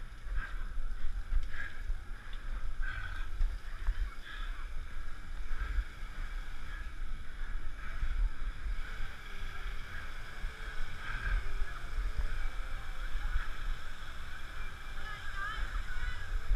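Wind buffeting the microphone of a body-worn camera on a climber scaling a rope cargo net, a gusty low rumble, with faint rope and timber handling noise underneath.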